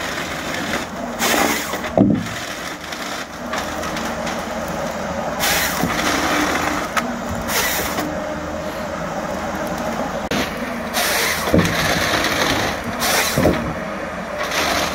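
Eco Log 580F forestry harvester's diesel engine running steadily under hydraulic load, with several short bursts of high-pitched noise from the EC561 harvester head as it saws and feeds timber. A few heavy thuds come as logs and the head hit the ground.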